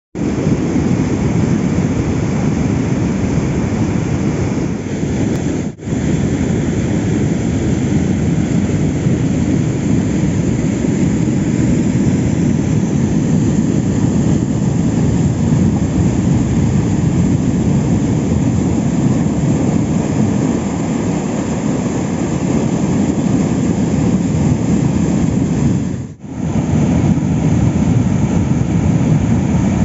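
Water rushing out of a dam's sluice gates and pouring over a concrete weir: a loud, steady, deep rush. It drops away for a moment twice, about six seconds in and near the end.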